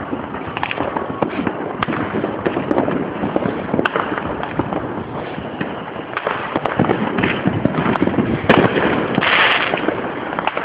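Neighborhood fireworks and firecrackers going off from many places at once: a dense, continuous run of overlapping bangs and pops, with a brief hiss about nine seconds in.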